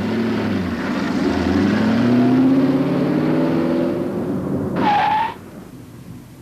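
Car engine accelerating, its pitch climbing steadily, then a short tyre screech about five seconds in, after which the sound drops away.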